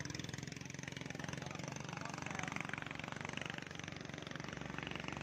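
Speedboat outboard motor running steadily at low speed, with faint voices behind it.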